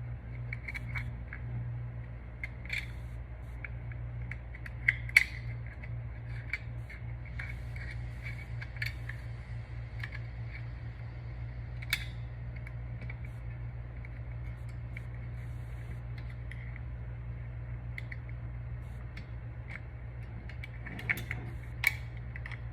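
Small metal clicks and taps, irregular and scattered, as a paper clip and pliers work a small spring onto the lever of a caliper handle. A few sharper clicks come about 5 s, 12 s and 21 s in, over a steady low hum.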